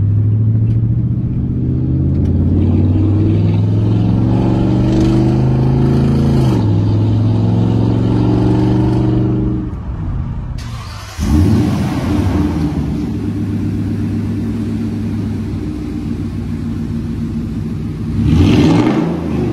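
2020 Toyota Tundra's 5.7-litre V8 through a Fi valvetronic cat-back exhaust, heard from inside the cab under acceleration: the note climbs in pitch, drops at a gear change about six and a half seconds in, and climbs again. After a break the exhaust runs at a steady low note, then a quick rev rises and falls near the end.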